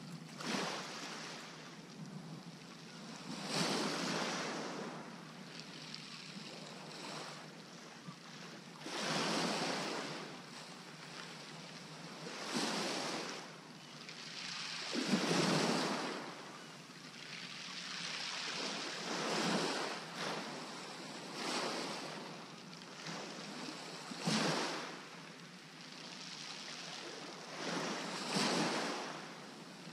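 Small waves breaking on a shingle beach and washing back over the pebbles, one surge every few seconds.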